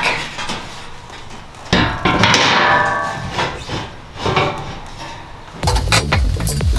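Knocks and scraping as a cargo rack is set down onto a UTV bed over the spare tire and shifted into place: one knock about two seconds in, a scrape, and another knock about four seconds in. Background music with a heavy beat starts near the end.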